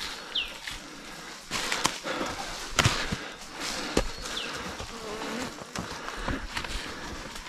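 Footsteps crunching through dry leaf litter and brush, with insects buzzing and a bird giving a short falling whistle twice, about four seconds apart.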